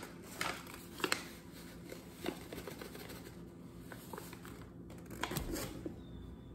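Flour being poured from a paper flour bag into a glass measuring cup: rustling of the paper bag and a few light, scattered clicks and knocks, most of them about five seconds in.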